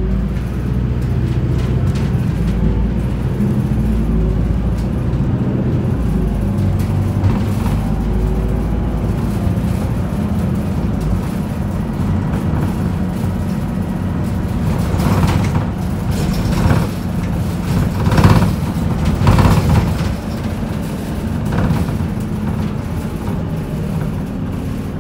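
Isuzu Erga city bus heard from inside the cabin while driving: its four-cylinder diesel engine running under way over a steady road rumble, the engine note stepping up and down in pitch. A few short clattering knocks come between about 15 and 20 seconds in.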